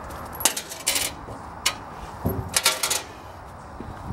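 Metal washers and lock nuts clinking as they are set down on the ribbed aluminum trailer floor: a few sharp metallic clicks, with a quick cluster of them about two and a half seconds in.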